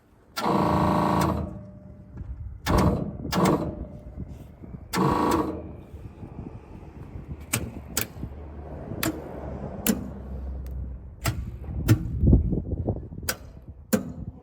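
Machinery noise: four short, loud pitched buzzing blasts in the first six seconds, then a string of sharp clicks and knocks.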